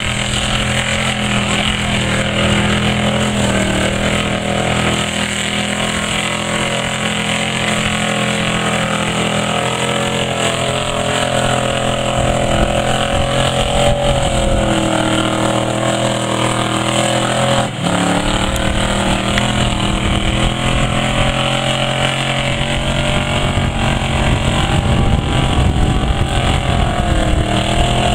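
Chevy pickup's engine running hard at high revs under heavy load as the truck plows through deep mud, its pitch wavering with the throttle.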